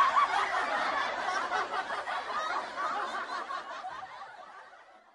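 Laughter from many people, fading out steadily to silence.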